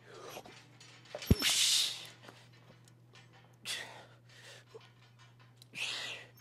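A man's sharp, forceful exhales, three of them about two seconds apart, as he works through reps of cable chest flies. A sharp clunk comes just before the first.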